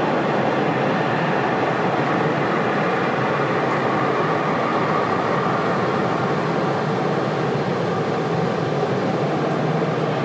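Steady, loud rumble of a jet aircraft's engines, holding an even level with no distinct tones.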